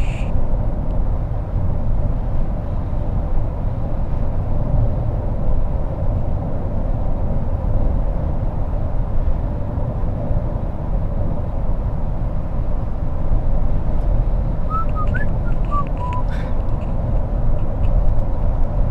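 Car driving, heard from inside the cabin: a steady low road and engine rumble with a faint steady hum. A few brief high chirps come in about fifteen seconds in.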